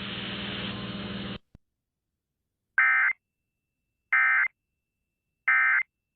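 Radio broadcast hum and hiss cuts off about a second in. Then the Emergency Alert System end-of-message signal plays: three identical short bursts of buzzy data tones, each a bit over a second apart, marking the close of the alert.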